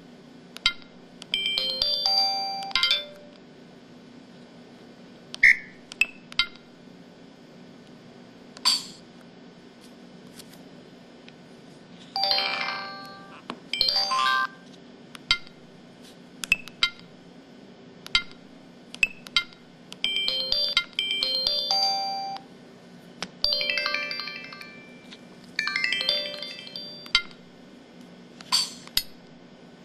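Samsung SPH-X9100 mobile phone playing its built-in sound effects one after another: short electronic chime and jingle phrases, each about a second long, with single short blips between them and brief pauses separating them.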